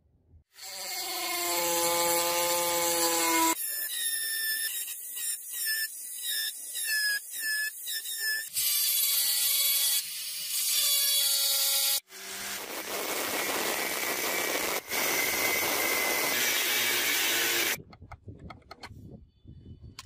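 Power grinder grinding the edge of a steel axe blade, in several separate stretches: first a few seconds of pitched whine, then a run of short quick passes, then a longer steady rasping grind that goes quieter near the end.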